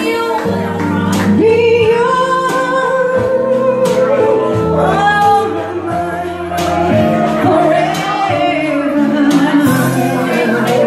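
A woman singing live into a microphone, holding long notes with a slight waver, over electric keyboard accompaniment.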